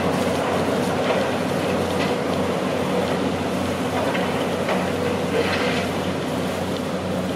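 Diesel engines of heavy foundation machinery, an earth drill rig and an excavator, running with a steady hum.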